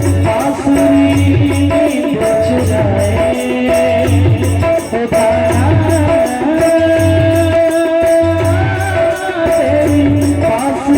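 Music: an instrumental interlude of a folk devotional song, a held melody line over a steady low drum beat and jingling percussion.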